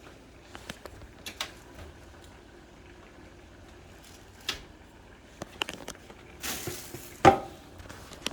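Kitchen clatter: scattered clicks and knocks of pots, lids and utensils being handled, over a faint steady background. Near the end come a short hissing scrape and then a loud clank, the loudest sound.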